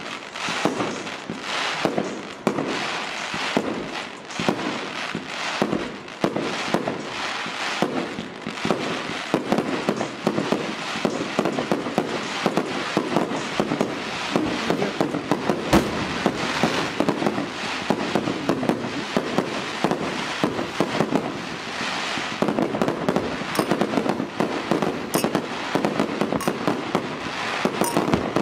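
Fireworks going off in a dense, continuous barrage of overlapping crackles and bangs, with here and there a sharper, louder crack.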